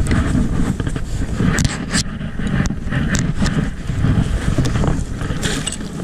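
A heavy, irregular low rumble of wind and handling noise on a boat-mounted action camera, with scattered short clicks and knocks, while a fish is played on a bent spinning rod from an inflatable boat.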